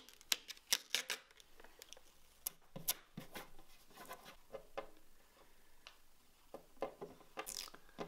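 Protective plastic film being peeled off a new PC case: irregular small crackles and ticks, with a brief crinkling rustle near the end.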